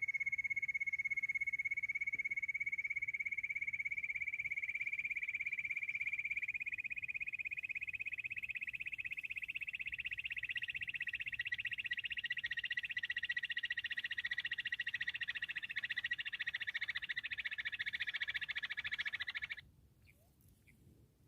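Bush quail call used as a hunting lure: a long, rapid, continuous trill that slowly rises in pitch. It cuts off suddenly about a second and a half before the end.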